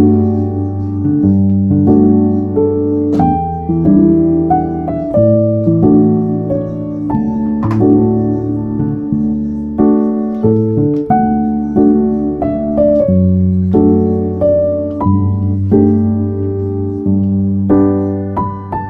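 Background music: a piano playing a slow, gentle melody over sustained chords.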